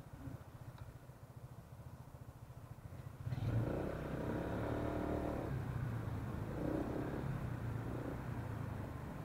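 Honda ADV150 scooter's single-cylinder engine silent at a stop under idling-stop, then restarting suddenly about three seconds in as the throttle is opened and running up as the scooter pulls away.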